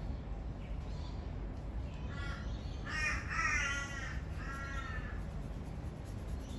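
Crow cawing, three calls in quick succession a couple of seconds in, over a steady low background rumble.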